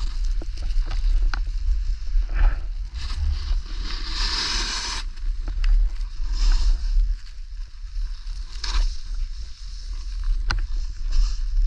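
Skis sliding and scraping over snow during a downhill run, with wind buffeting the microphone throughout. About four seconds in, the snow hiss swells for about a second.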